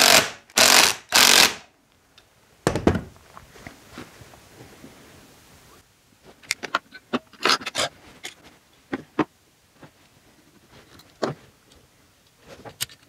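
A cordless power tool run in a few short bursts on the engine's fasteners, then a dull thump a little under three seconds in. After that come scattered light clicks and taps of metal parts as a cover is fitted to the two-stroke engine case by hand.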